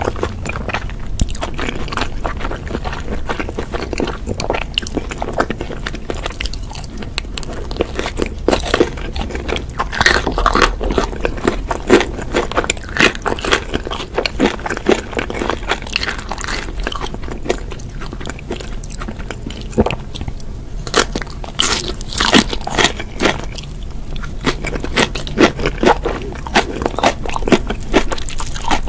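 Close-miked eating of red-sauced fried chicken: irregular crisp crunches from bites, with wet chewing between them.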